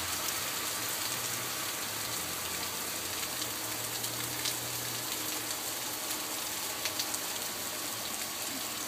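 Heavy rain falling steadily, with a few sharp drips striking close by. A faint low hum runs underneath.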